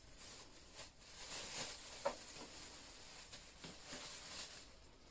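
Thin plastic shopping bag rustling and crinkling as hands rummage inside it, with one brief sharp click about two seconds in.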